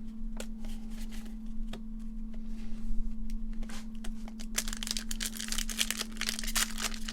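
Pokémon booster pack wrapper handled with a few scattered crinkles, then torn and crinkled open in a dense run of crackling from about four and a half seconds in. A steady low hum runs underneath.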